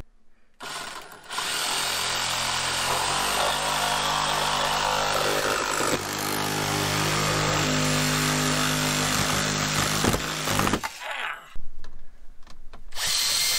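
Cordless power saw running for about ten seconds as it cuts through the car's centre console around the gear shifter, its motor pitch shifting a few times during the cut. A few shorter bursts of tool noise follow near the end.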